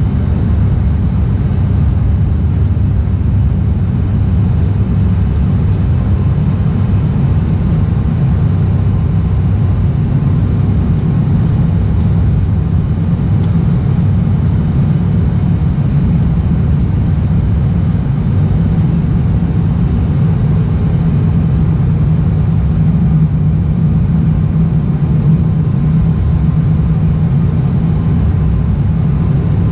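Steady, loud low drone of an ATR 72's turboprop engine and propeller as heard inside the passenger cabin on approach, a deep hum with no breaks or changes.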